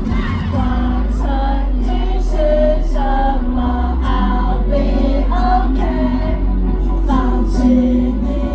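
Loud live pop music played through a PA system: a melodic female vocal line changing note about twice a second over a steady, heavy bass.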